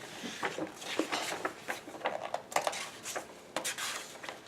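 Paper rustling with light irregular taps and scrapes, as the pages of a booklet are leafed through.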